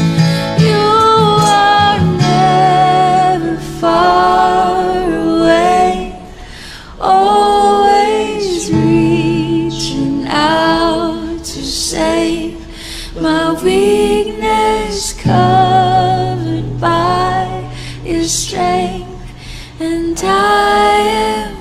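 Music: a woman singing a melody, holding notes with vibrato, over long-held bass notes and accompanying instruments.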